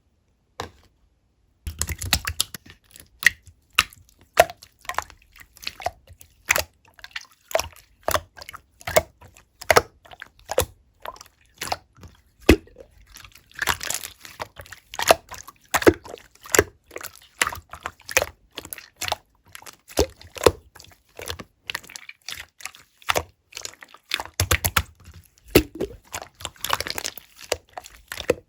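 Soft, slightly melted white slime squished and pressed by hand, giving a dense, irregular run of wet clicks and pops. Near silence for the first second or two, apart from a single click, before the clicking starts in earnest.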